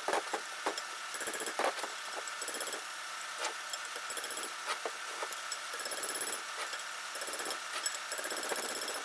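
A quick, irregular series of light metal-on-metal taps, several a second: a hammer striking a chisel to drive a cut, loosened bearing retaining ring along a Dana 44 axle shaft and off it.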